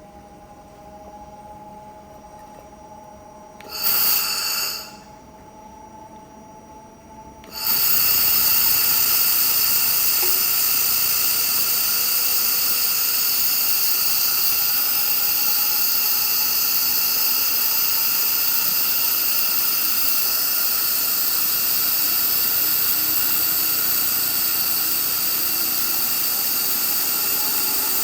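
Handheld fiber laser welder welding 7.9 mm mild steel with 1.0 mm filler wire: a brief burst of hissing about four seconds in, then from about eight seconds a loud, steady hiss with a high whine that runs on without a break.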